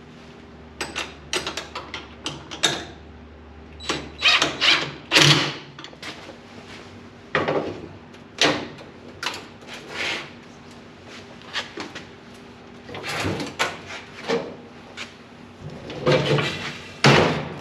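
Irregular metallic clicks, knocks and clanks of hand tools and hardware against the steel tool chest as its casters are unbolted and swapped.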